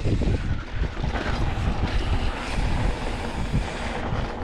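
Wind rushing over the camera microphone on a Polygon Siskiu T8 mountain bike descending a rough dirt trail, mixed with the steady rattle and small knocks of the bike and tyres over the ruts and bumps.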